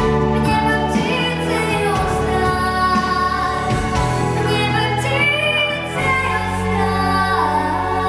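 A young girl singing a song into a handheld microphone over instrumental accompaniment, her voice carrying long held notes.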